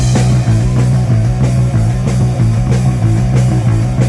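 Live rock band playing loudly: distorted electric guitar over a steady bass line and drums with a regular beat.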